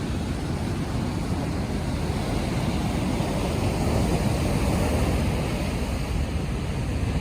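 Ocean surf washing onto the beach, a steady rush of breaking waves, with wind buffeting the microphone; it swells a little around the middle.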